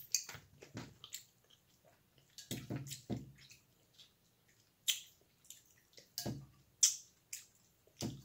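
Hands working through sauce-covered seafood in a bowl: irregular wet squelches and drips with sharp clicks of shell, a dozen or so scattered events.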